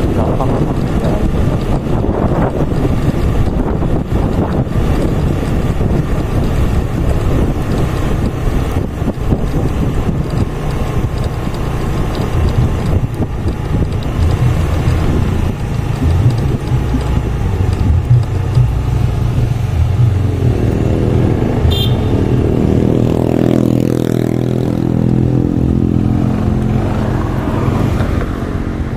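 Motorbike engine running steadily while riding along a road. About twenty seconds in, the engine note climbs and then drops again.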